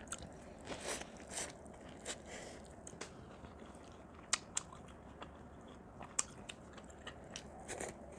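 Close mouth sounds of a person biting and chewing boiled corn on the cob: scattered soft crunches and wet clicks at irregular moments.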